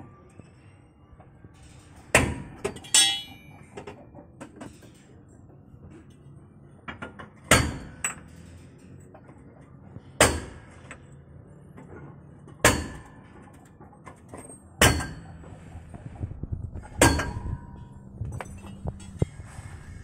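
Hammer blows on metal car suspension parts: single sharp strikes about every two to two and a half seconds, one early strike followed by a short metallic ring.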